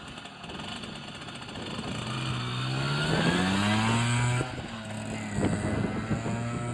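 Yamaha FS1-E moped's small two-stroke engine on its first run after a rebuild, revving up from about two seconds in, then dropping back and running steadily at a lower pitch.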